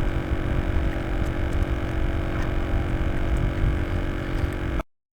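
Steady low rumble with a constant hum, cutting to dead silence for about half a second near the end.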